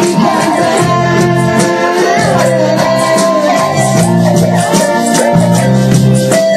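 Worship music with shaker or rattle percussion keeping a steady beat over sustained melodic lines.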